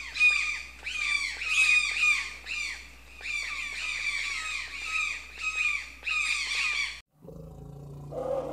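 Toucan calling: a run of squeaky, squawking notes, two or three a second, each dropping in pitch. The calls cut off abruptly about seven seconds in, and a low steady drone begins just after.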